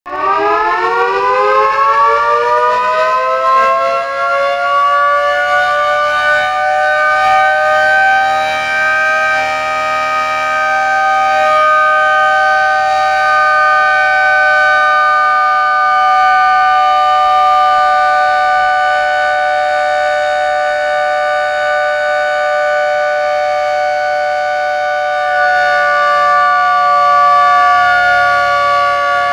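A 220 V AC motor-driven industrial siren, rated 8000 rpm, switched on and wailing: its pitch rises over the first six seconds or so as the rotor spins up to speed, then holds a loud, steady tone.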